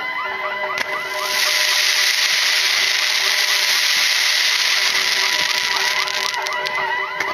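Fireworks going off in a rapid stream of short rising whistles, several a second. From about a second in, a loud dense hiss covers them for about five seconds, then the whistles come through again.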